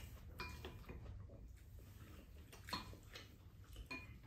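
Quiet eating sounds: metal spoons and chopsticks clinking lightly against ceramic bowls, three short ringing clinks over a low room hum.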